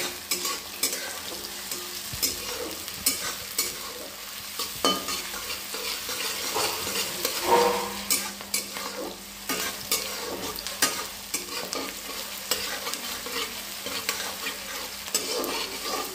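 Sliced onions sizzling in hot oil in a kadhai, stirred and turned with a spatula that scrapes and clicks against the pan again and again. The onions are being fried until they turn reddish-brown.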